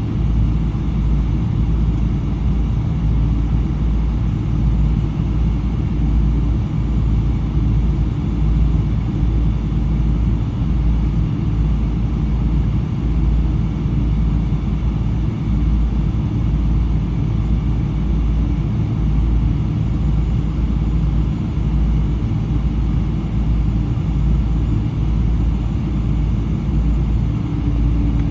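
Steady low cabin rumble of a Boeing 777-300, from its twin Rolls-Royce Trent 800 engines and the airflow, heard from a window seat in the rear cabin. A faint steady hum joins near the end.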